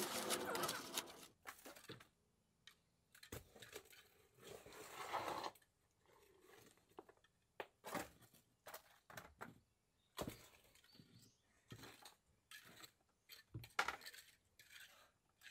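Quiet, scattered scrapes and knocks of hand tools and a bucket working wet concrete into a wooden form.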